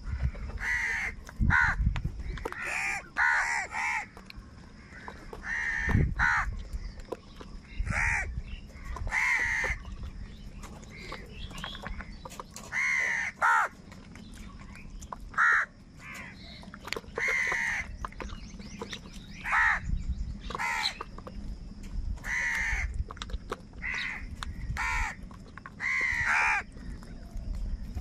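House crows cawing again and again, harsh calls about one a second, some in quick pairs: the calls of a flock competing over food.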